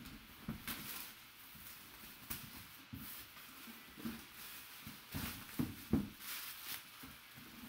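Clear plastic shrink wrap crinkling as it is torn and pulled off a cardboard box, in irregular crackly bursts, with a couple of sharper knocks from the box being handled about five and a half to six seconds in.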